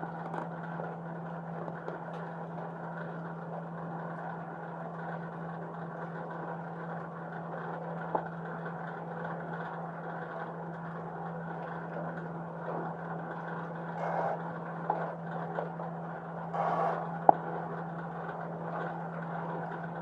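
A steady low mechanical hum, with a few sharp clicks and short rustling or handling noises near the end.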